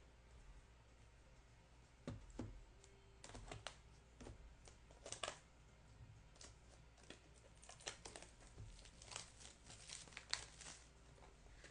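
Faint crinkling, tearing and light clicking of plastic wrap and cardboard packaging being handled and opened, as on a sealed box of trading cards. The noises come in irregular spurts from about two seconds in.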